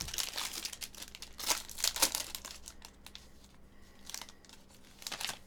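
Plastic wrapping on a trading-card box or pack crinkling and tearing as it is opened, in irregular crackles that are busiest in the first two seconds and thin out after.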